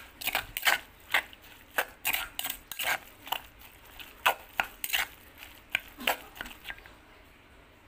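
A metal spoon stirs thick chilli-and-fish paste in a stone mortar, scraping and clinking against the stone in irregular strokes. The strokes stop near the end.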